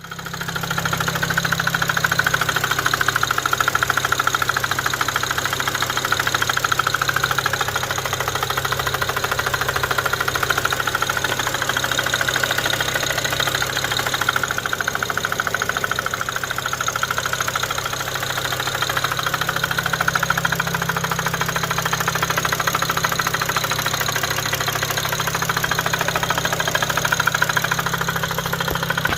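BMW N54 twin-turbo inline-six idling with a rapid, steady knocking over the engine hum. The owner places the knock somewhere at the driver's side front of the engine and does not know its cause.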